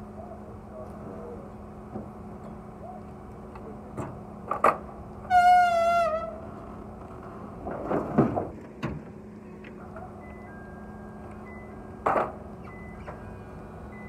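Wooden pallets being handled on a pickup's bed: scattered knocks and thuds over a steady low hum, with a loud wavering squeal that falls in pitch about five seconds in. Faint repeating beeps like a reversing alarm start near the end.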